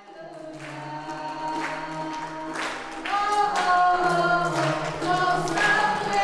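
Worship song sung by several voices into microphones over ukulele strumming, fading in and growing louder about three seconds in.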